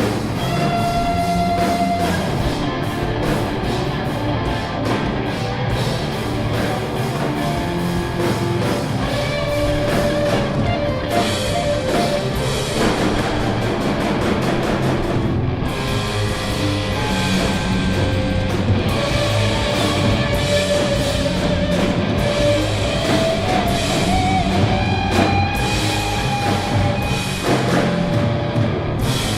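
Stoner metal band playing: distorted electric guitars over a drum kit, with held lead guitar notes, one bending upward in pitch near the end.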